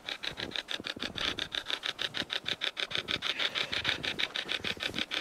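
Hacked-radio spirit box ("hack shack") sweeping continuously through radio stations: a fast, even chopping of static, about ten pulses a second.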